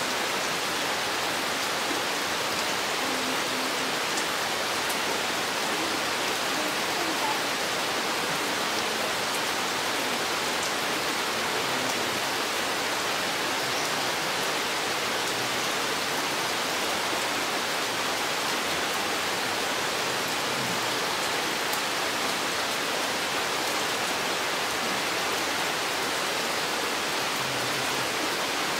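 Steady rain falling in a forest, an even, unbroken hiss.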